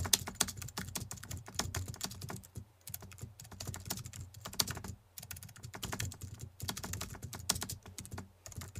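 Computer keyboard typing sound effect: quick runs of key clicks with a few short pauses, going along with on-screen text being typed out.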